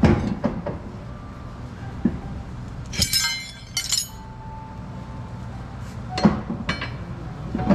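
Metal clinking and knocking from hand tools and suspension parts during coilover removal. Two bright ringing clinks come about three and four seconds in, with lighter scattered knocks around them.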